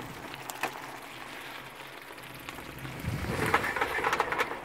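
Tomato sauce and pasta bubbling and sizzling in a frying pan on a portable gas stove: a steady hiss that grows louder about three seconds in.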